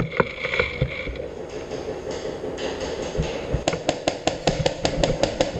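Airsoft gunfire: a few scattered sharp clicks, then, past halfway, a rapid even string of shots at about seven a second lasting nearly two seconds.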